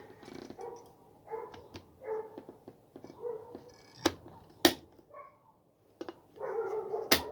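A dog giving short, repeated whimpering yips. A few sharp clicks come in between, the loudest about four seconds in and just before the end.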